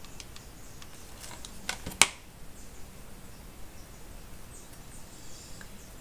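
Quiet handling of a hot glue gun and cotton fabric on a tabletop: a few light taps and one sharp click about two seconds in.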